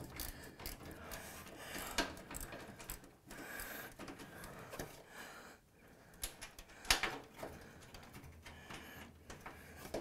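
Scattered clicks, knocks and scraping of tools and metal parts as a defective shock absorber is worked loose and pulled from the base of a Miele washing machine. Two sharper clicks come about two seconds and seven seconds in.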